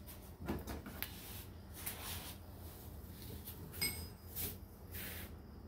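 Faint clicks and rustling of small metal parts, calipers and paper being handled on a workbench, with a brief high ringing tick about four seconds in.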